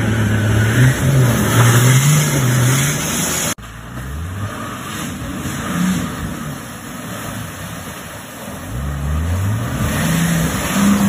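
4WD engines revving hard in deep mud. The first is loud over a rushing spray noise and cuts off suddenly about three and a half seconds in. A second, quieter one then revs up twice, climbing in pitch each time, as it pushes through the ruts.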